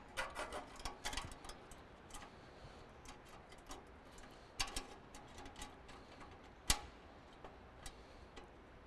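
Faint, irregular clicks and taps of the furnace igniter's metal mounting bracket and screws being handled and fitted into the furnace burner compartment, the sharpest click about two-thirds of the way in.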